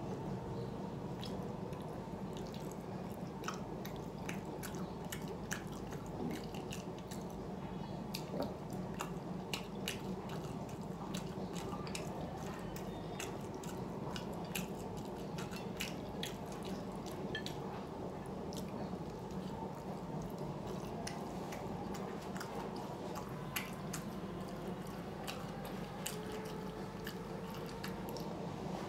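Close-up eating sounds: chewing with frequent short wet mouth clicks and smacks, over a steady low background hum.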